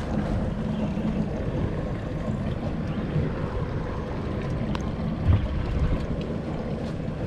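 Wind buffeting the microphone over water lapping against a small fishing boat, a steady rush with a brief thump about five seconds in.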